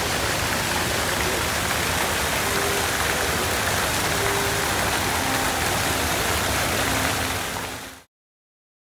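A steady, even rushing noise, much like running water, that fades out near the end.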